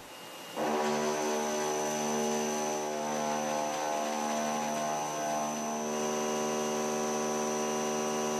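BIG Daishowa Fullcut Mill 63 mm indexable face mill cutting S55C carbon steel at 5 mm depth. The cut sets up a steady, humming machining tone with a thin high whine, starting about half a second in and holding even throughout.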